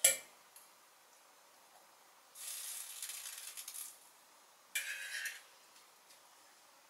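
Spaghetti being served from a stainless steel pot with a small metal strainer. There is a metal clink at the start, then two short bouts of hissing rustle, the first about a second and a half long and the second about half a second, from water draining through the strainer and the utensils working the pasta.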